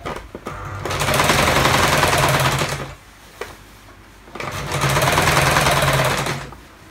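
Electric domestic sewing machine stitching through a thick padded mat in two runs of about two seconds each, with a short pause between them while the fabric is repositioned.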